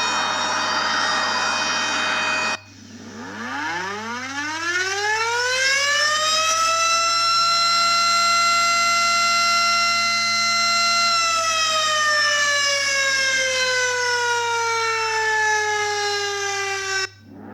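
Tornado warning siren (outdoor civil-defense siren). A steady siren tone cuts off abruptly about two and a half seconds in. Another winds up from a low pitch to a high steady tone, holds it, then slowly winds down before being cut off near the end, where a new wind-up begins.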